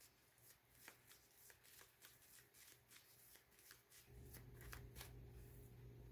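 Tarot cards being shuffled by hand, faint, a run of light papery clicks and flicks. A low steady hum comes in about four seconds in.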